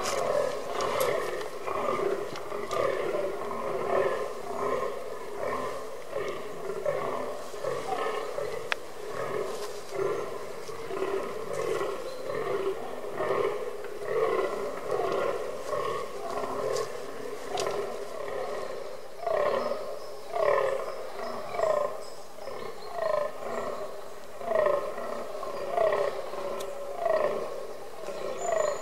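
Fallow deer bucks groaning in the rut: short, repeated grunting calls from more than one buck, overlapping at first. Near the end one buck's groans stand out, coming about once a second.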